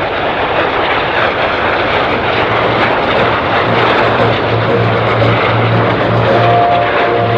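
Canadair CT-114 Tutor jet trainers flying a formation display overhead: a loud, rushing single-jet engine noise that builds in the first seconds and then holds. A steady low hum comes in about two and a half seconds in.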